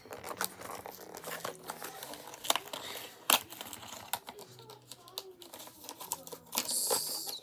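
Packaging of a new webcam being opened by hand: crinkling and tearing with scattered sharp clicks and snaps, and a longer tearing sound near the end.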